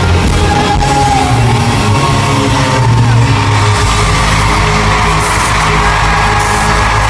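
Loud live band music at a pop concert, with the crowd yelling and whooping over it. A deep bass note comes in about four seconds in.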